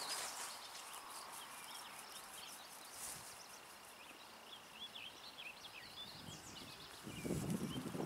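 Small birds chirping and twittering in quick, short calls over a faint steady outdoor hiss, with a brief low rustling near the end.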